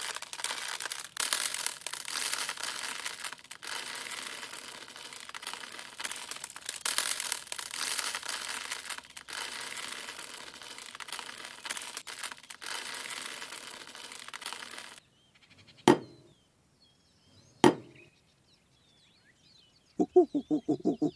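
Dry rustling and crinkling, like loose craft material being handled and spread on a model, which swells and dips and stops after about fifteen seconds. Then come two sharp clicks, and near the end a short, fast-pulsing pitched sound.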